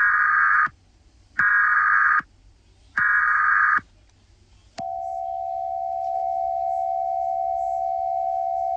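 Emergency Alert System alert tones: three short bursts of warbling data tone about a second and a half apart, the header that opens an alert. Then, about five seconds in, a steady attention tone starts and holds.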